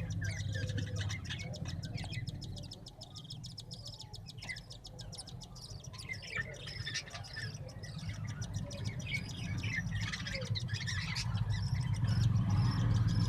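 Many small cage birds chirping and chattering together, a dense run of short high calls that thins out for a few seconds before filling in again. A steady low hum sits under it.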